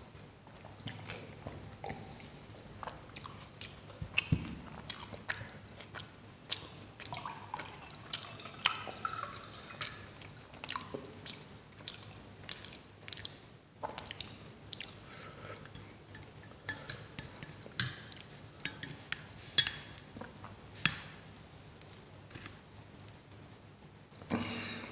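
Close-up eating sounds: sips and swallows of cola from a glass, then chewing with many small wet mouth clicks. Near the end comes a short rustling burst as a paratha is torn by hand.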